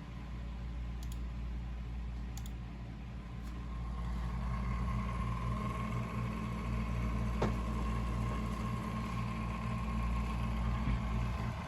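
Faulty Lian Li UNI FAN SL120 PC fan making a steady hum with a faint whine above it, the noise of a fan that is powered but not spinning. A single sharp click comes about seven seconds in.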